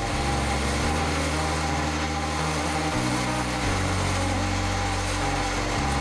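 Wood lathe running steadily with a parting tool cutting into the spinning wooden handle, parting it off from the chuck.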